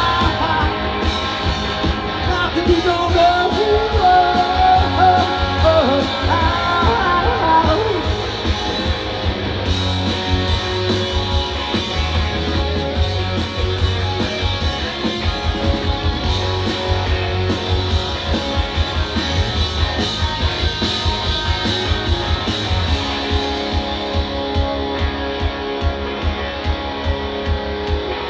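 Live rock band playing through the stage PA: electric guitars, bass and a steady drum beat in a stretch without vocals, with a bending melodic line over the first eight seconds or so.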